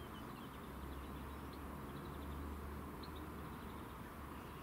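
Low, steady rumble of a train pulling away into the distance, with small birds chirping faintly over it.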